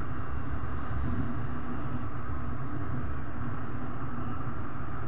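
Motorcycle riding at steady speed: the engine running under a constant rumble of wind over the microphone.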